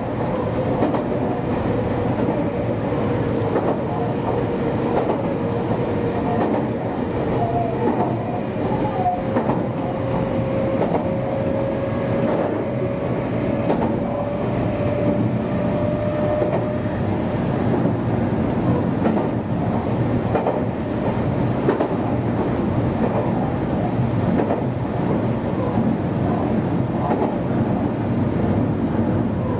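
Meitetsu 1200 series electric train running between stations, heard on board: a steady rumble of wheels on rail with scattered clicks, and a whining tone that rises slightly in pitch before fading out about halfway through.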